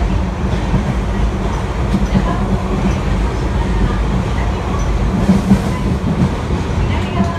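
Osaka Metro 30000-series subway car running underground, heard from inside the car: a steady, loud rumble of the wheels and running gear.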